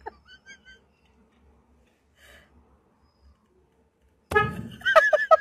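Car horn sounded from inside the car in a loud run of short, rapid toots about four seconds in, after a nearly quiet stretch.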